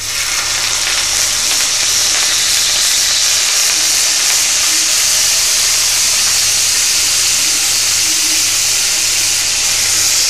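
Salmon fillet sizzling skin-side down in a hot oiled pan: a steady, loud frying hiss that swells up within the first second as the fish goes in and then holds.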